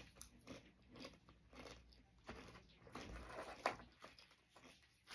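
Crunchy Doritos tortilla chips being chewed close to the microphone: a run of crisp crunches, about three a second, the sharpest about two-thirds of the way in.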